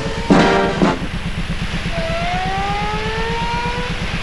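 A brass music chord ends about a second in. Then a vessel's engine runs with a steady, fast low throb, and about halfway through a clear tone rises slowly over two seconds.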